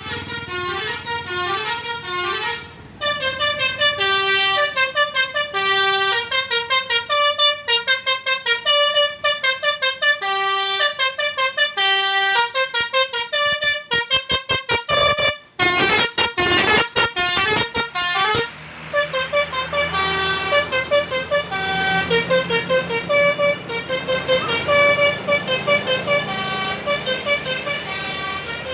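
Indonesian 'telolet basuri' multi-tone bus horn playing a fast melody of short notes. In the middle the horn breaks into a few seconds of very rapid staccato toots. In the later part a second tune plays over a low rumble.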